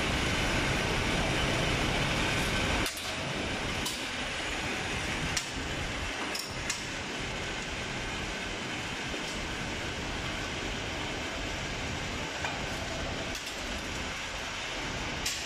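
Steady rushing machine noise, louder for the first three seconds, with about eight sharp metal clinks and taps scattered through it as a steel ladle and scraper work over a solder-bar casting mould.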